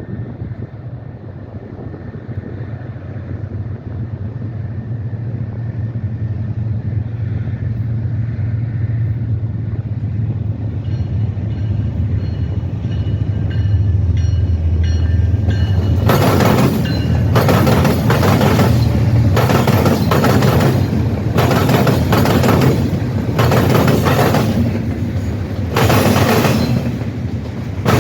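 A train approaching with a low rumble that grows steadily louder, then its wheels clattering hard over the rail crossing diamond. From just past halfway there are loud bangs roughly once a second as each set of wheels hits the crossing.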